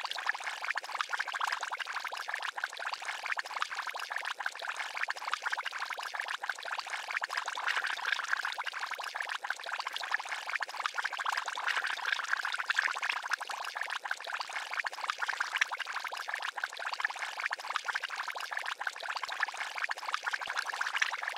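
Liquid bubbling continuously in a fast, dense run of small bubbles: a bubbling-potion sound effect.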